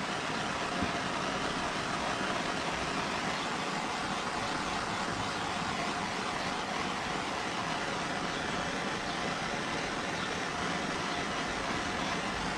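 Small handheld torch flame burning with a steady hiss while heating heat-shrink wire connectors.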